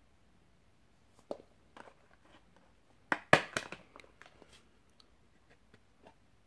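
Discs and a clear plastic case clicking and clattering as a Blu-ray disc is picked out by hand, with a loud cluster of clicks about three seconds in and lighter ticks after.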